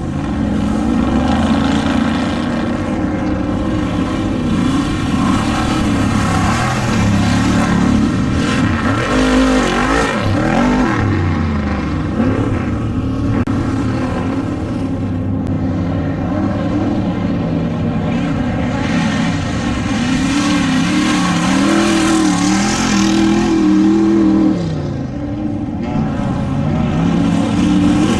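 Off-road desert race vehicle engines running hard, their pitch rising and falling over and over as the throttle opens and closes. The level drops briefly near the end.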